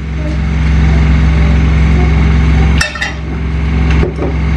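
Kitchen clatter of a frying pan and dishes being handled, with a sharp knock about three seconds in and another near the end, over a steady low machine hum.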